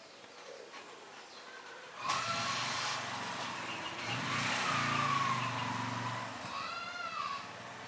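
A motor vehicle's engine running past for several seconds, coming in suddenly about two seconds in, with a whine that slowly falls in pitch. A short, high, arching call rings out near the end.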